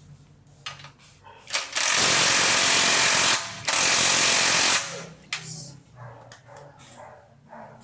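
Pneumatic impact wrench hammering in two bursts of over a second each, about two seconds in, with a short break between them. Lighter tool clicks and knocks come before and after.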